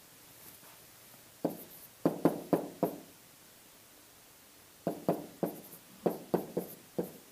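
Pen tapping and knocking against an interactive whiteboard's hard surface while writing, in two quick runs of short sharp taps, about five and then about seven.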